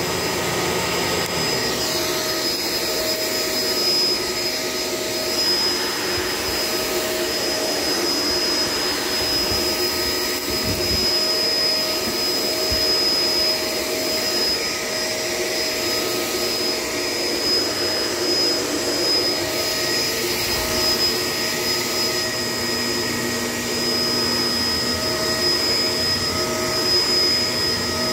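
Shark LA702 Lift-Away upright vacuum cleaner running steadily: a high motor whine over the rush of air.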